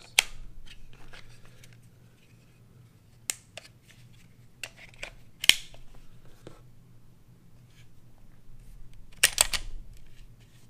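Scattered clicks and light scrapes of a Glock pistol being handled and its slide and frame fitted together, with a sharper click about five and a half seconds in and a quick cluster of clicks near the end.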